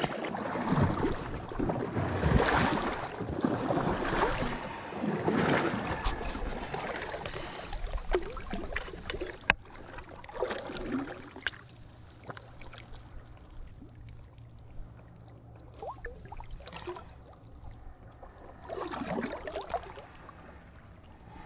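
Shallow lake water sloshing and splashing around a camera dipped at the surface while a smallmouth bass is held and released by hand. For the first several seconds the sloshing surges about every second and a half; after that it is fainter and muffled, as if underwater.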